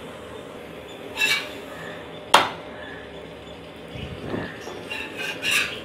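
A few short clinks and knocks of a cooking utensil against a hot iron tawa, the sharpest a little over two seconds in, over a faint steady sizzle of a paratha frying in oil.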